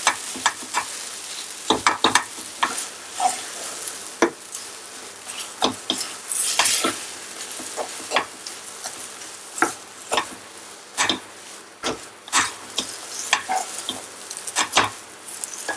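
Spiced urad dal paste sizzling in oil in a pan while a spatula stirs and scrapes it, with irregular sharp scrapes and knocks against the pan over a steady hiss.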